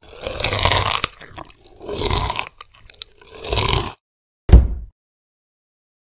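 Monster chewing sound effect: three crunching bites about a second and a half apart, then a single loud thump about four and a half seconds in.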